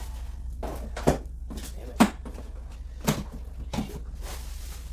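Sharp knocks and clatter of hard plastic monitor parts being handled and set against a table and box: four knocks, the loudest about two seconds in. A steady low hum lies underneath.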